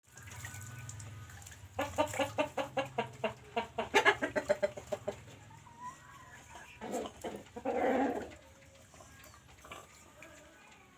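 Chickens clucking: a quick run of loud clucks for about three seconds, then a harsher, drawn-out call about seven seconds in.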